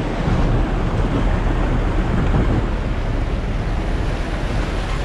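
Pickup-truck taxi (songthaew) driving over a rough dirt track and through a shallow muddy stream, with steady wind buffeting the side-mounted microphone. The engine, tyres and splashing water blend into one loud, even rush.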